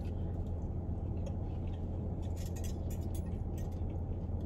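Steady low hum of a car's engine and air conditioning running while parked, with faint scattered clicks and crunches of someone eating crispy fried chicken.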